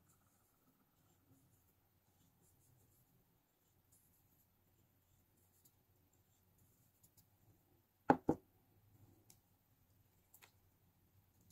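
Faint scattered ticks as salt is shaken from a small glass jar, then two sharp knocks a quarter second apart about eight seconds in as the jar is set down on the table.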